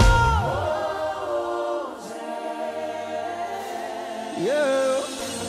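Worship singing: voices holding long notes over soft, sustained backing. The band's low end drops away about half a second in, and a single voice slides up into a note near the end.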